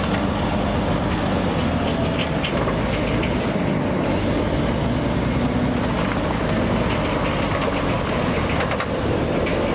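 Panzer IV Ausf. H tank driving slowly: a steady engine rumble, with short clanks from the steel tracks scattered through it.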